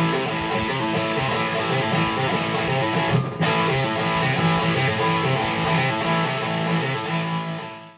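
Background music led by guitar, with a steady beat, fading out at the end.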